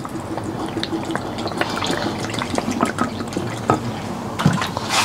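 Soy sauce pouring in a thin stream from a plastic bottle into a glass bowl of sauce, trickling and splashing, with a few light knocks near the end.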